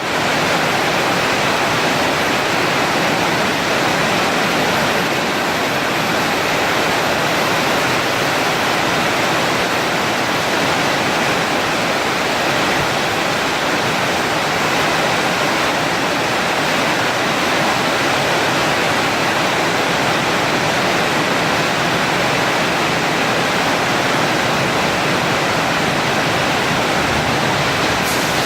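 Portable CNC cutting machine's torch cutting steel, a loud, steady hiss that starts abruptly and holds unchanged.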